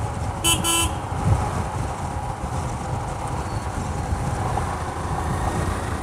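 A short vehicle horn honk about half a second in, over a steady rush of wind and the low rumble of the motorcycle ridden, picked up by a helmet-mounted microphone. The wind blast on the mic is heavy.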